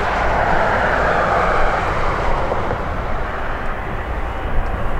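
Airbus A330-243 jet engines (Rolls-Royce Trent 700 turbofans) running as the airliner rolls on the runway: a loud, steady rushing roar, slightly stronger in the first couple of seconds.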